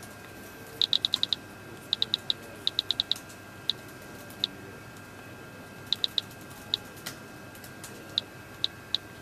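iPhone Calendar date-and-time picker wheels ticking through the phone's speaker as they are spun. The ticks come in quick runs of four or five while the wheel turns fast, then slow to single ticks as it settles, one tick for each value passing the selection line.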